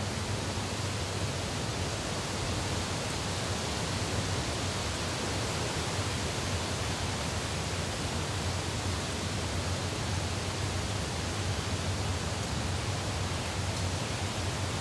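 Steady, even hiss-like noise with a low hum underneath, unchanging throughout, with no distinct events.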